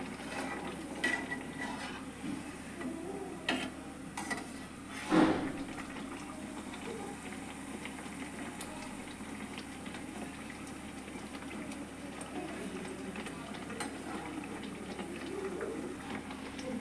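A kachori deep-frying in oil in an iron kadhai, with a steady low sizzle. A steel spatula clinks and scrapes against the pan a few times in the first six seconds, loudest about five seconds in.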